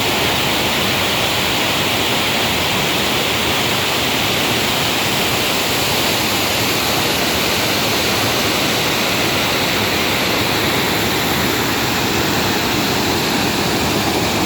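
Water running steadily, a constant rushing hiss with no breaks.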